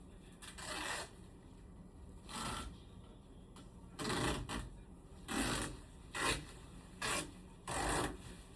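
About seven short scraping or scrubbing strokes at irregular gaps, each lasting under half a second.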